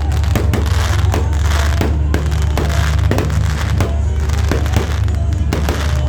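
Fireworks bursting and crackling repeatedly, several bangs a second, over loud music with a heavy bass.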